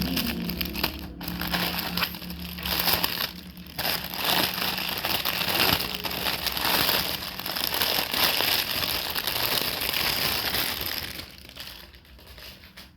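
Gift wrapping crinkling and crumpling as a present is unwrapped by hand. It is a dense, continuous rustle that dies down about eleven seconds in.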